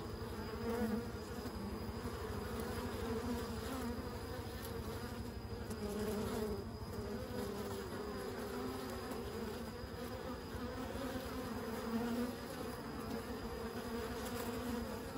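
Honey bees buzzing at the hive entrance as foragers fly in and out: a steady hum of many wings with a wavering pitch, swelling briefly a few times.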